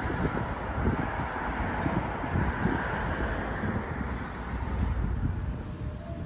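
Wind buffeting the microphone over the steady running noise of a tram moving away along the track, thinning after about four seconds.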